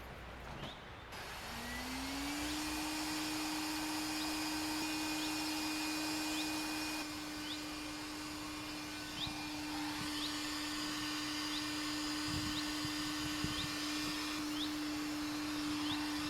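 A small electric motor spins up over about a second and then runs at a steady, even pitch, with a high whine above it. Short rising bird chirps repeat about once a second behind it.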